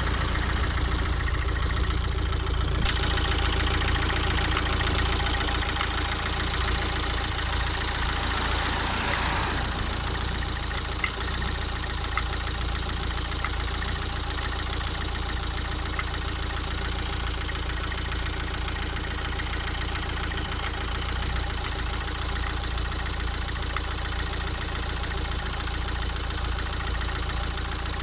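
Opel Zafira B 1.7 CDTI four-cylinder turbodiesel idling steadily, with occasional sharp taps from the engine: an unexplained foreign knocking noise.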